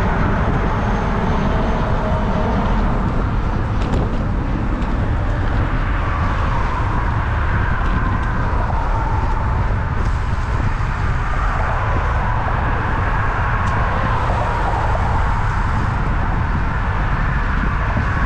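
Steady road-traffic noise of cars passing, over a constant low rumble, with a wavering whine that rises and falls as vehicles go by.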